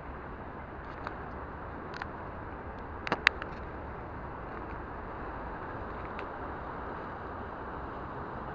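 Steady rushing background noise with a few light clicks and knocks over it: one about a second in, one about two seconds in, and a sharper cluster a little past three seconds.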